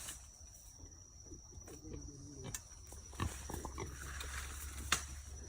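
Wild piglet grunting briefly about two seconds in, with a few sharp snaps and rustles from the brush afterwards.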